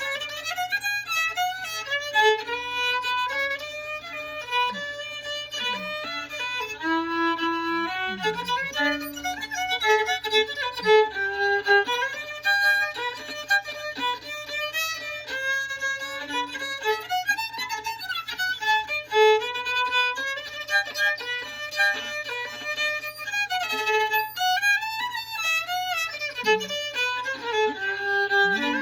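Solo fiddle playing a lively tune in the key of G, a single bowed melody line moving quickly from note to note, with a faint steady low hum underneath.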